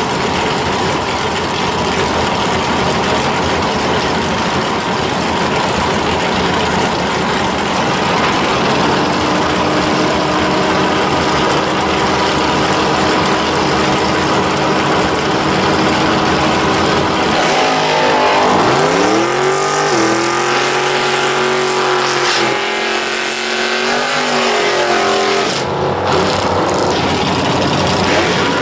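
V8 engine of a second-generation Chevrolet Camaro drag car running loud at the starting line. About two-thirds of the way through it revs, its pitch dipping and then climbing, and near the end the car pulls away down the strip.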